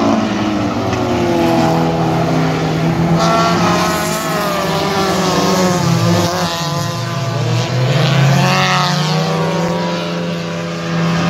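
Several front-wheel-drive compact race cars running hard on a dirt oval, their engine notes overlapping and rising and falling as they accelerate and lift through the turns.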